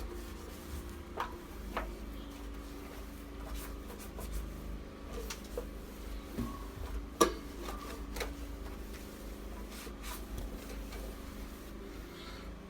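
Scattered light clicks and taps of small parts being handled, with a sharper knock about seven seconds in, over a steady low hum.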